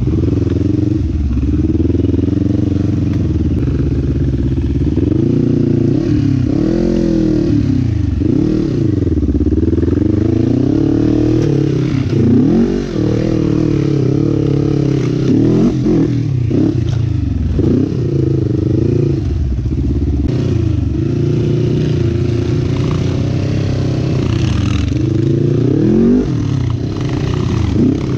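Sport quad (ATV) engine running hard, its pitch rising and falling again and again as the throttle is opened and closed.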